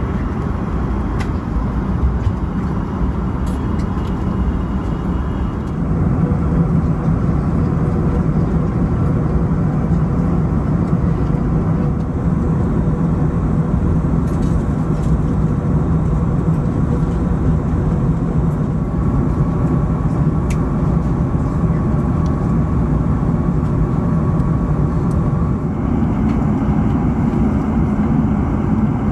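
Steady cabin noise of an Airbus A380 in cruise, heard from inside the cabin: an even, low-heavy rush of airflow and engines. Its tone shifts slightly about six seconds in and again near the end.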